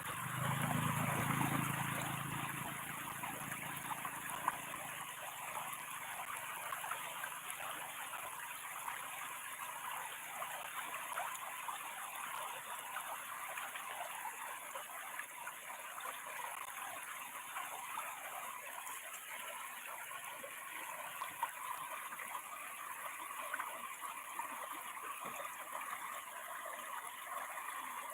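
Water flowing steadily over a small weir, an even rush of stream water splashing and trickling. A low hum fades out over the first few seconds.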